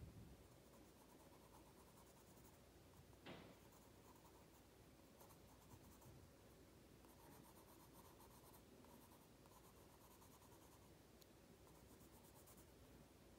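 Faint scratching of a colored pencil on an index card in short, repeated strokes, with a soft knock about three seconds in.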